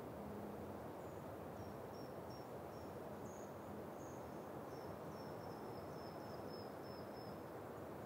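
Steady wind through stone pine trees, with a string of short, high-pitched chirps from about a second in until near the end.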